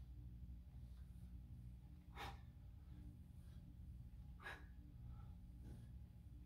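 Three short, sharp breaths forced out by a man swinging a kettlebell, timed with the swing, over a faint steady low hum of room tone.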